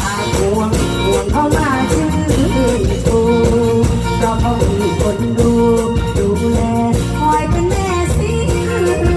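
A woman sings a lively Isan toei song into a stage microphone, backed by a live band with a steady beat. Her voice holds long notes with sliding ornaments.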